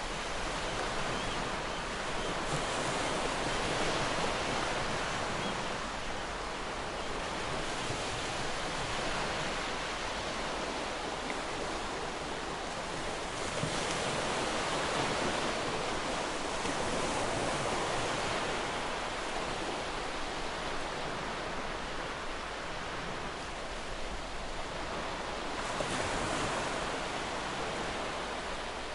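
Ocean surf: waves breaking and washing in a steady hiss that swells and eases every few seconds.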